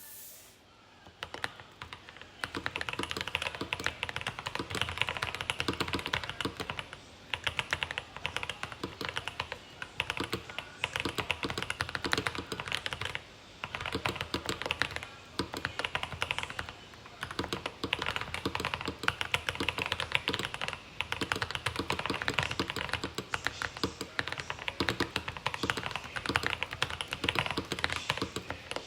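Fast, continuous typing on a Rama Works M65-B mechanical keyboard with Boba U4T tactile switches, GMK keycaps, and tape and PE-foam mods. The dense stream of keystrokes starts about a second in, with a couple of short pauses.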